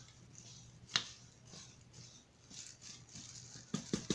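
Light kitchen handling sounds from a mixing bowl and utensils: a single sharp click about a second in, then a run of quick light taps near the end.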